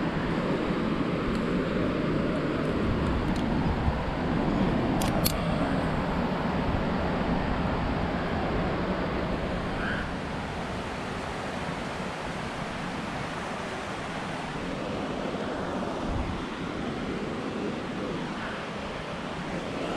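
Steady rushing wind noise on the microphone, a little stronger in the first half, with two short clicks about five seconds in.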